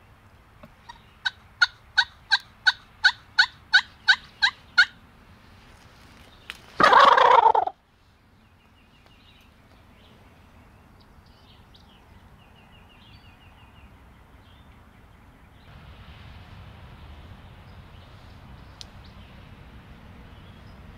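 Turkey calling: a run of about a dozen hen yelps, evenly spaced and growing louder, followed a couple of seconds later by one loud gobble lasting about a second. Both come from calls worked close by in the blind, the gobble from a call struck to make a tom answer.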